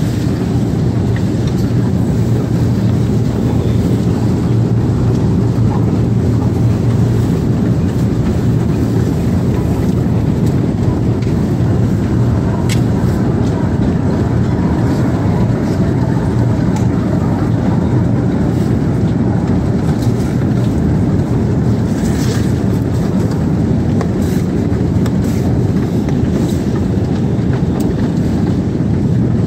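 Escalator running: a steady low mechanical hum and drone from the moving steps and drive, with an occasional light click.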